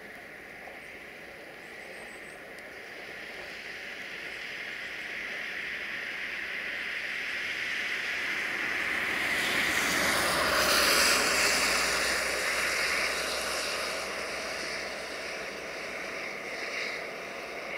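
A car passing on a wet road: the hiss of its tyres on the wet asphalt swells to a peak about ten seconds in, then fades as it drives away.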